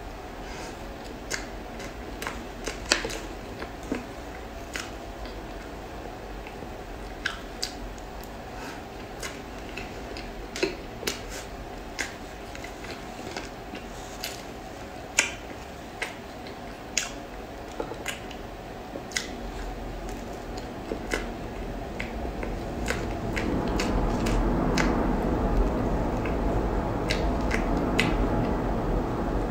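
Close-up eating of soft matcha cream cake: chewing with scattered wet mouth clicks and smacks. In the last several seconds a louder, denser rustling noise builds up under the clicks.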